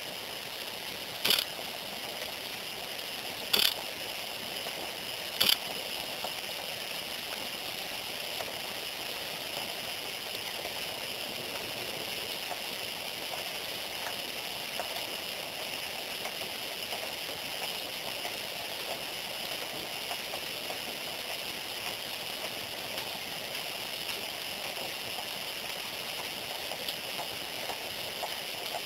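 Steady hiss of outdoor background noise, with three sharp clicks in the first six seconds.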